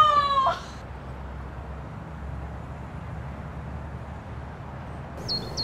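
A woman's cheer trails off in the first moment, then a steady low outdoor rumble of a residential street, with a few short high bird chirps near the end.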